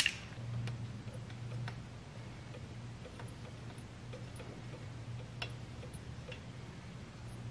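Spark plug being unscrewed by hand from a small four-wheeler engine's cylinder head: a few faint, widely spaced metallic ticks over a low steady hum.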